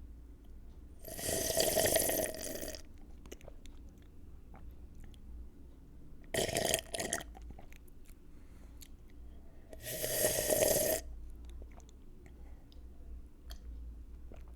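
A person slurping a drink loudly through the lips, three slurps: a long one about a second in, a short broken one midway, and another long one near the end, with small wet mouth clicks between.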